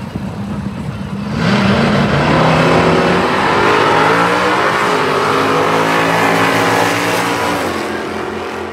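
Two drag-racing cars launching side by side at full throttle, engines climbing in pitch through the gears. It gets suddenly loud about a second and a half in and fades near the end as they pull away down the strip.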